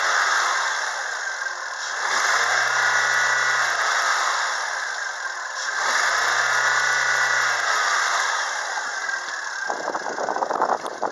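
Skoda Octavia's 1.6-litre MPI four-cylinder petrol engine (CWVA) being revved up from idle and let fall back, twice, after a first rev winding down at the start. Near the end, rustling and knocking handling noise as the camera is moved.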